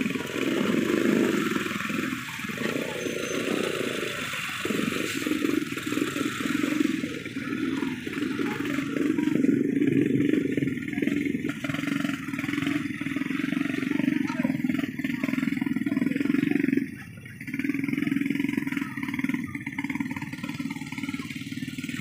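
Several motorcycle engines running at low speed close by, a steady drone that drops out briefly about seventeen seconds in.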